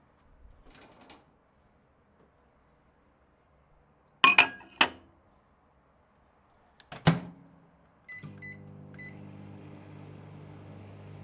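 Microwave oven being used: sharp latch clicks of the door about four seconds in and another clack near seven seconds as the door shuts, then three short keypad beeps. The oven then starts and runs with a steady hum.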